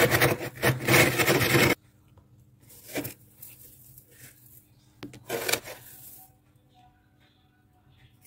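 Clear drinking glass scraped through thick, flaky freezer frost. Loud scraping for the first couple of seconds, then two shorter scrapes about three and five and a half seconds in.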